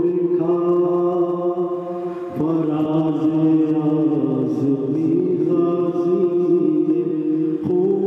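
A man's voice singing a marsiya, an Urdu mourning elegy, into a microphone in the chanted soz style, drawing out long held notes. There is a brief break for breath about two and a half seconds in and another near the end.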